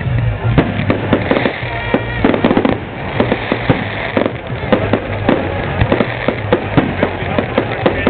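Fireworks display: aerial shells bursting overhead in a dense run of bangs and crackles, several a second.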